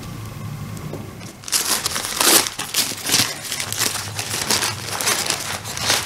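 White paper wrapping around an orchid crinkling and crackling as it is handled and unwrapped. It starts about a second and a half in and is loudest just after two seconds.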